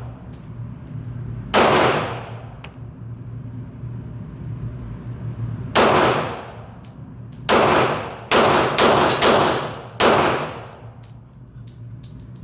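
AR-15 rifle shots with echoing tails: one shot about a second and a half in, another about six seconds in, then five in quick succession. Faint clicks fall between the shots.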